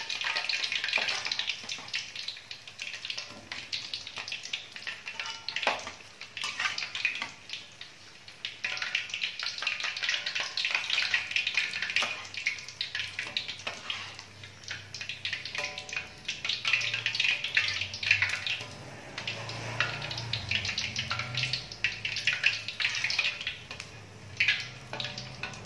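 Vegetable fritters sizzling and crackling in hot oil in a wok as they finish frying and are lifted out, with a few sharp clinks of the metal skimmer against the pan.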